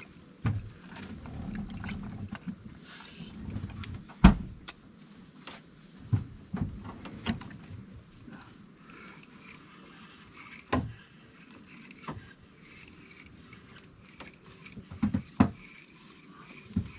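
Scattered knocks and clicks of people moving and handling gear in a small fishing boat, the loudest about four seconds in and a quick pair near the end. A low rumble runs through the first few seconds.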